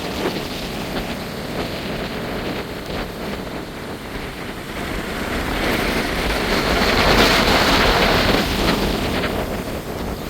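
Strong dust-storm wind rushing through trees, with gusts buffeting the microphone. It swells into its loudest gust about seven seconds in, then eases slightly.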